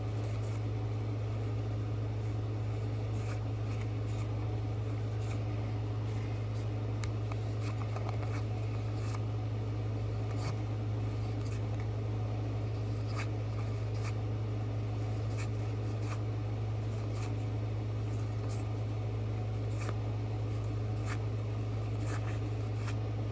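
A steady low hum runs throughout, with faint scattered clicks and rustles of trading cards being handled.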